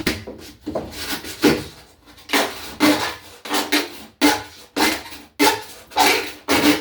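Razor blade scraping soap scum off a fiberglass shower surface in quick repeated strokes, about one and a half a second.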